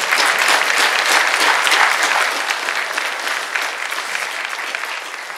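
Congregation applauding, loudest in the first couple of seconds and then slowly dying away.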